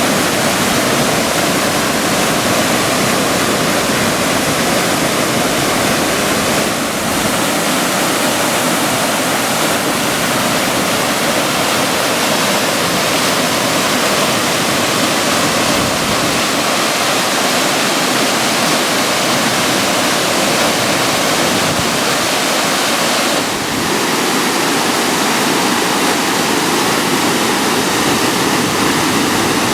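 Mountain waterfall: falling water rushing loudly and steadily.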